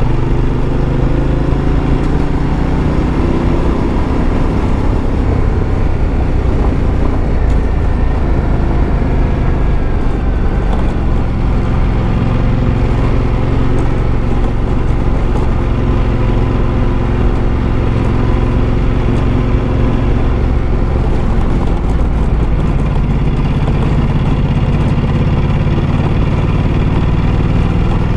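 Ducati Multistrada motorcycle engine running steadily while riding at moderate speed on a gravel road. Its pitch shifts only slightly over a constant rush of wind and road noise.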